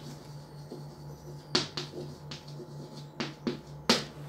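Chalk writing on a chalkboard: about half a dozen sharp ticks and short scrapes as letters are written, over a steady low hum.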